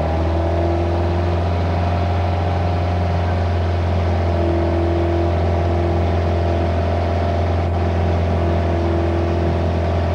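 Motorboat engine running at a steady high throttle, under load as it tows three water skiers up out of the water, heard close from aboard the tow boat.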